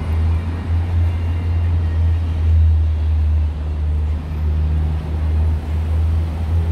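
Heavy city traffic on a multi-lane avenue: a steady, loud low rumble of many cars and taxis, with no single vehicle standing out.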